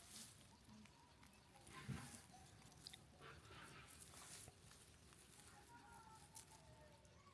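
Near silence with faint scattered taps and rustles, and a faint high-pitched squeak or chirp in the second half.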